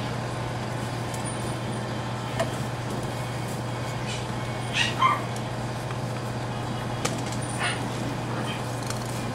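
English bulldog puppies at play give two short yelps about five seconds in, the second falling in pitch, and a weaker one later, over a steady low hum.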